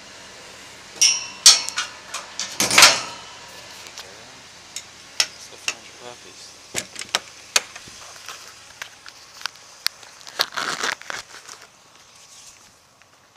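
Metal clanking and rattling as a wire dog-cage door and a truck's animal compartment door are shut and latched, with the loudest bang about three seconds in, followed by scattered small clicks and knocks.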